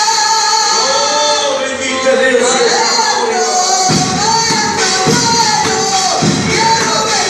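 Live worship song: a man singing into a microphone over instrumental backing. About four seconds in, a heavier, regular beat comes in.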